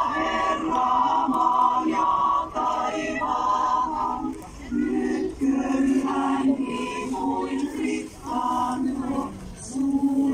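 Women's choir singing, its phrases broken by short pauses.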